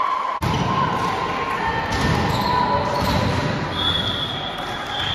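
Echoing indoor game sounds on a wooden sports-hall court: a ball thudding on the floor, a few high drawn-out squeaks and players' voices in the background. The sound drops out briefly about half a second in.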